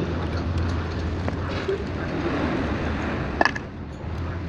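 A steel socket on a long bent wrench bar clinks against the hub bolts of a truck's rear wheel, once sharply with a short ring about three and a half seconds in, over a steady low hum.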